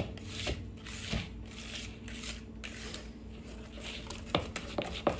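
Wire hand whisk beating thick chocolate cake batter in a plastic bowl: a rhythmic wet swishing at roughly two strokes a second, with a couple of sharper taps near the end.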